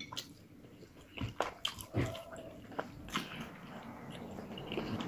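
Close-up mouth sounds of biting and chewing on a cooked fish head and its soft bones, with irregular small wet clicks and smacks.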